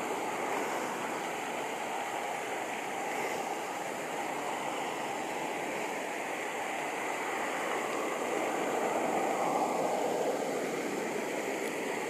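Steady rushing of flowing water, an even noise without any distinct calls or knocks.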